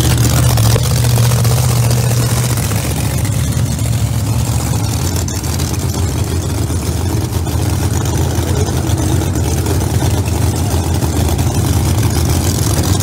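Drag race car engine idling steadily, a loud, even low tone with no revving.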